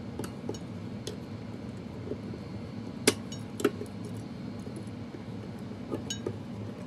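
Scattered metallic clinks and taps of pliers and a coil spring against the steel actuating discs of a Farmall 450 brake as a new spring is pushed into place. The two sharpest clinks come about three seconds in, half a second apart.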